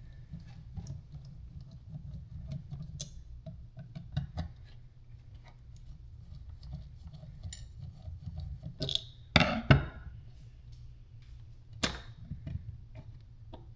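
Light clicks and taps of small plastic parts and a hand tool being handled, with a few sharper knocks about nine to ten seconds in and again near twelve seconds, over a low steady hum.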